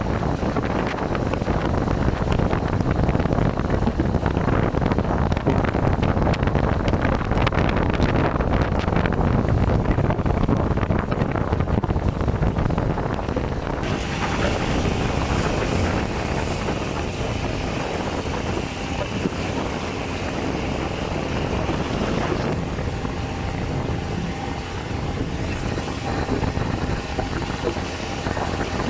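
A boat's engine running steadily under way at sea, with wind buffeting the microphone. About fourteen seconds in, a higher steady hiss joins, and it drops away again some eight seconds later.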